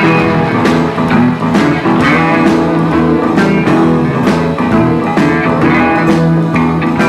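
Country band playing an instrumental intro: guitar lines over bass and a steady drumbeat.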